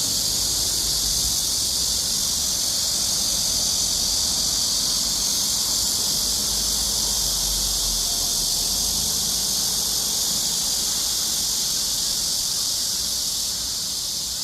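Several cicadas singing together in a tree: a loud, steady, high-pitched shrill drone that does not let up, easing slightly near the end.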